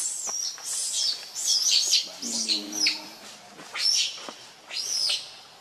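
A string of loud, high-pitched calls, each rising and falling over a fraction of a second and coming in irregular bursts. A brief lower call comes in the middle.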